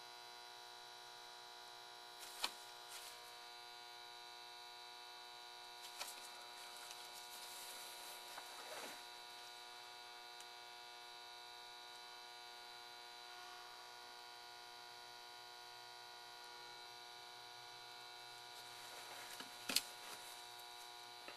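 Faint steady electrical hum made of several fixed tones, with a few light taps and clicks: one about two seconds in, a couple between six and nine seconds, and a sharper one near the end.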